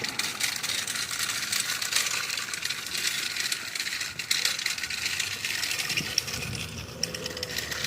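Rapid mechanical clicking over a steady hiss, with one louder click about six seconds in.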